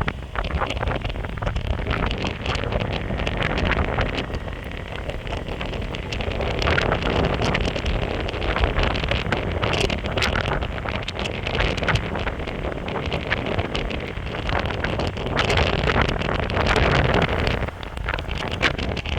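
Wind buffeting the microphone over the rumble of a Meepo Hurricane electric skateboard's honeycomb wheels rolling on pavement at speed, with many small clicks and ticks from the road surface.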